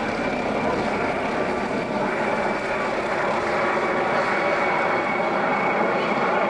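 Air ambulance helicopter climbing away after take-off. Rotor and engine noise run steadily, with a steady high whine over the top.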